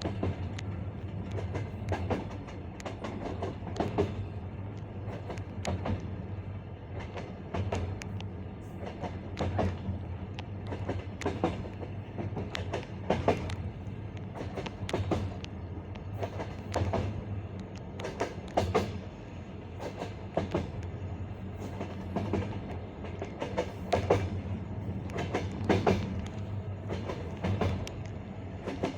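Passenger carriage wheels knocking over the rail joints of jointed track: the classic clickety-clack, in repeated groups of knocks over a steady low rumble of the moving train.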